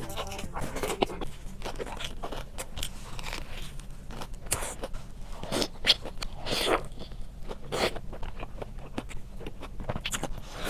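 Crunching bites and chewing of a crispy-battered mozzarella corn dog, in irregular crackly bursts, the loudest a little before the middle.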